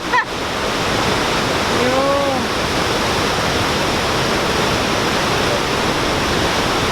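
The steady, dense roar of Victoria Falls: a huge volume of water plunging into the gorge, a loud, even rush with no letting up. A short shouted "yo" rises over it about two seconds in.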